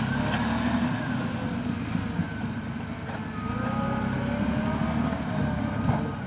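Caterpillar D6T bulldozer's diesel engine running steadily while the machine works, with faint whining tones that rise and fall above the engine.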